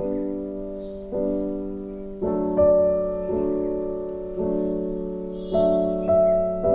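Background piano music: slow, gentle notes and chords, each struck and then fading away.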